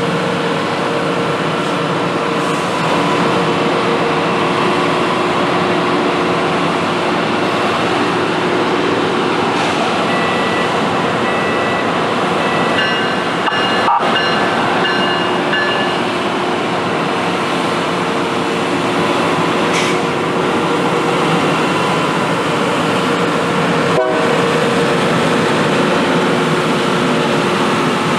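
Loram rail grinding train passing, a loud steady roar. A run of short, high-pitched tones sounds in the middle.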